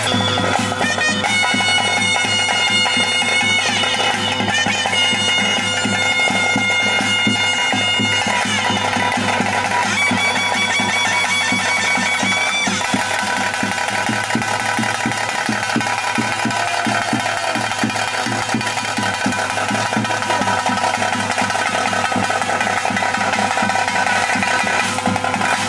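Ritual music: a reed wind instrument plays long held notes over a steady drone, with drums beating a regular rhythm throughout. After about 12 seconds the high melody drops away, and the drone and drumming carry on.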